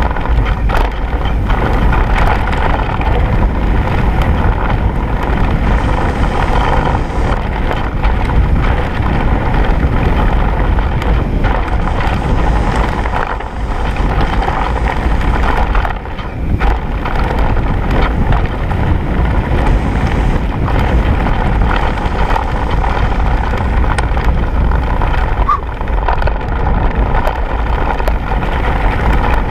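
Wind rushing over the camera microphone while a mountain bike rolls fast down a gravel forest track, with a steady rumble of tyres on the loose surface and many small rattles and knocks from the bike.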